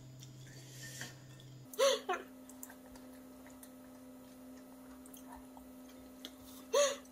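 Mouth sounds of a person eating instant noodles: quiet chewing, with two short, louder pitched slurps, about two seconds in and near the end. A steady low hum runs underneath.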